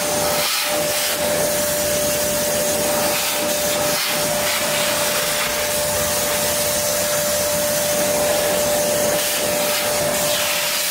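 Kärcher WD1 Classic wet/dry vacuum cleaner running steadily: an even rush of air with a constant whine.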